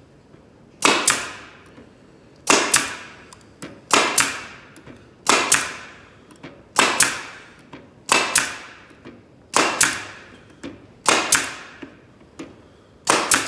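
Pneumatic crown stapler firing staples into pine Langstroth beehive frame parts held in a jig: nine shots, about one every one and a half seconds, each a sharp double crack with a short fading tail.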